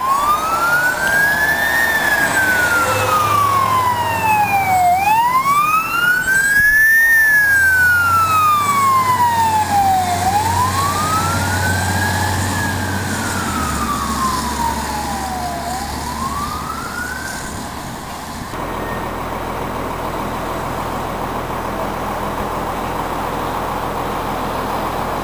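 Fire truck siren wailing, rising and falling in slow sweeps about every five seconds over the truck's engine and road noise. About eighteen seconds in the siren cuts off on a last rise, leaving the steady engine and road noise.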